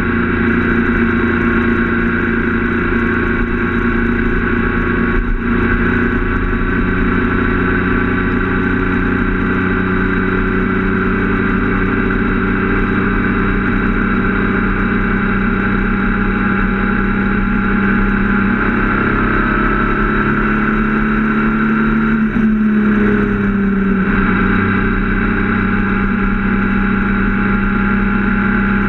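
Triumph Speed Triple 1050's three-cylinder engine running steadily under way, heard from the bike. About two-thirds of the way through, the note briefly breaks and drops in pitch, then settles again.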